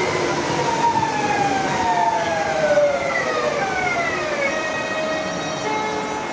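Renfe Civia electric commuter train passing, its traction motors whining in several tones that glide steadily down in pitch as the train slows, levelling off near the end, over the rumble of wheels on the rails.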